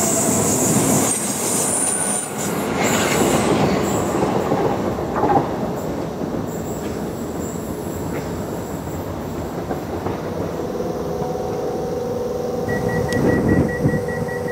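Southeastern Class 375 Electrostar electric multiple unit passing at speed: dense wheel and rail noise with a high wheel squeal in the first couple of seconds, dying away after about five seconds. Later a steady electric hum comes in, joined near the end by a pulsing high tone, from a Class 319 unit departing.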